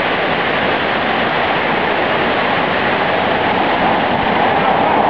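Fast whitewater river rushing over rapids: a steady rush of water.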